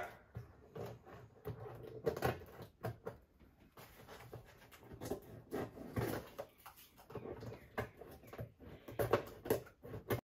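Dried newspaper paper-mâché shell crackling and rustling in irregular bursts as hands knead and crumple its top edge.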